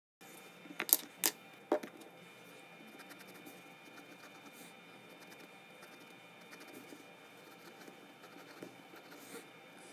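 Pencil lead scratching faintly over a small square of paper as short grid lines are drawn, after three sharp taps about a second in.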